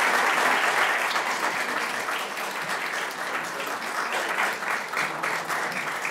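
Audience applauding, loudest at the start and easing a little, with separate claps standing out toward the end.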